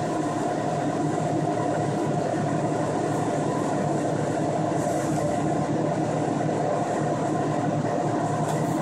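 Steady machine whir with a constant hum underneath, from kitchen equipment running without pause.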